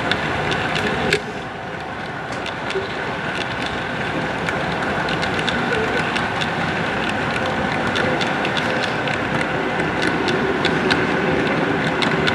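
Model railroad freight cars rolling along the track, a steady rolling rumble with many quick, irregular clicks from the wheels. The sound drops suddenly about a second in, then slowly builds back up.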